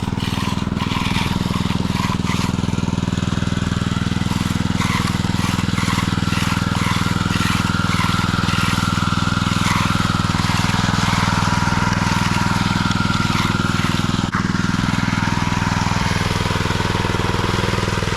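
An engine running steadily nearby, under light scraping of a hand finishing tool on fresh concrete.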